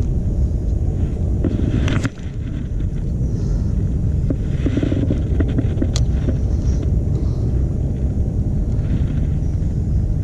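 Steady low rumble of wind buffeting the microphone, with a couple of sharp clicks about two and six seconds in.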